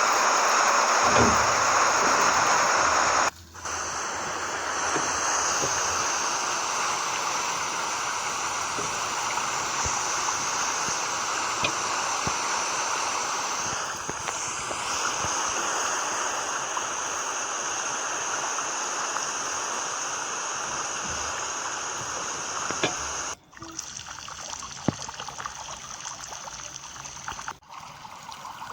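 Water from a garden watering spraying and splashing onto plants and soil, a steady rushing hiss. It drops out briefly about three seconds in, and again twice near the end, where it goes on more quietly.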